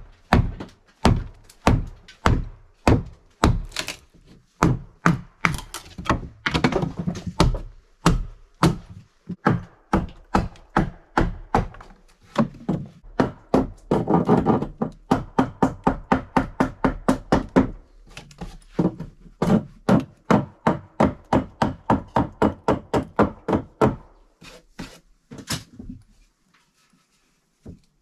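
Hatchet chopping into a log window sill: a long series of sharp wooden chops, about two to three a second and quickest in the middle, stopping shortly before the end.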